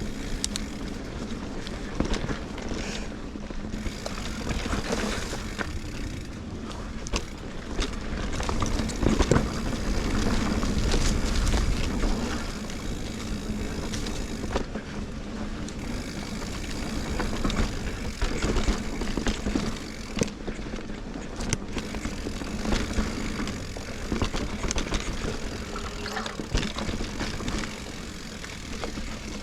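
Sonder Evol GX mountain bike ridden along a dirt trail: tyres rolling over the ground and the bike rattling over bumps, with wind noise on the helmet or bike camera's microphone.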